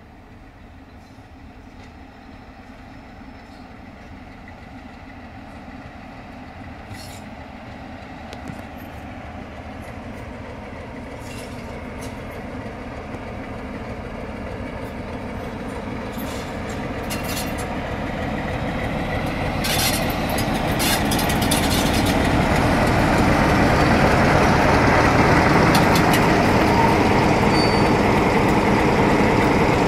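Class 47 diesel locomotive with its Sulzer twelve-cylinder engine, hauling coaches into the station. It grows steadily louder as it approaches and passes close by, with the rumble of the train and a few short high-pitched clicks along the way.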